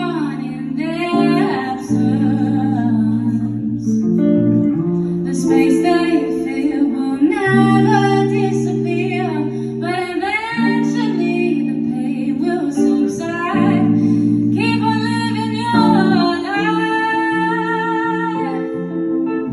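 A woman singing over guitar chords that change every second or two.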